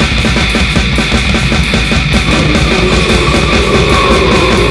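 War metal recording: a dense wall of distorted guitars over fast, relentless drumming. About halfway through, a long held note rises out of the mix and slowly climbs.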